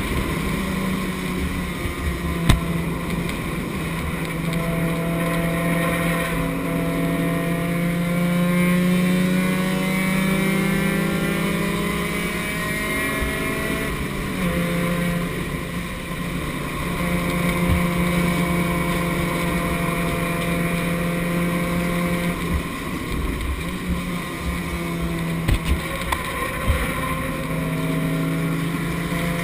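Race car engine heard from inside the stripped cockpit under racing load. Its pitch holds, drops twice as the driver lifts, and climbs again, over wind and road noise, with a sharp knock a few seconds in and a few more knocks near the end.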